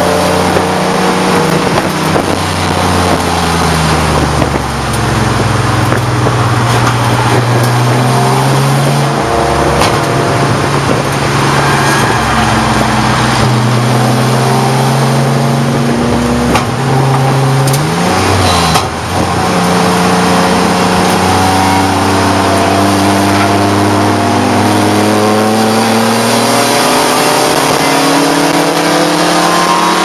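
Race car engine running hard at high revs, heard from inside its stripped cabin under a steady rush of road and wind noise. Its pitch rises and falls as the car accelerates and slows, with a brief drop and quick recovery about eighteen seconds in.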